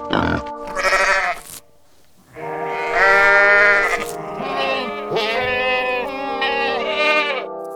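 Animal calls over background music: a short call, a brief pause, then several long wavering calls over held musical tones.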